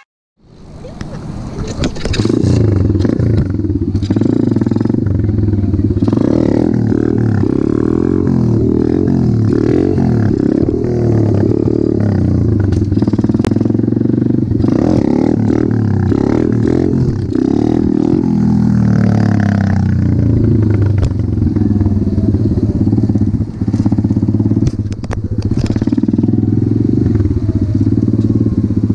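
Apollo RFZ 125 pit bike's single-cylinder four-stroke engine running under way, its note rising and falling again and again as the throttle is worked. It fades in over the first two seconds.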